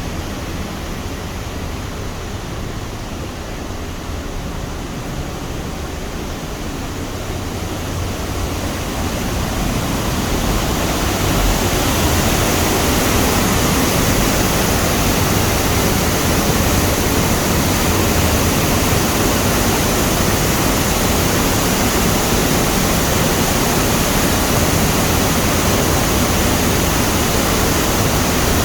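The Rhine Falls, a large waterfall, rushing in a continuous roar of falling water, growing louder about ten seconds in and then holding steady.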